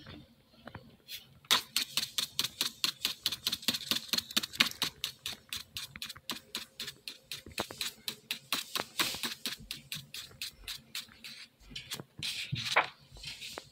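Rapid scratchy strokes of a drawing medium on sketchbook paper, about five a second, in an even run of hatching that starts about a second and a half in.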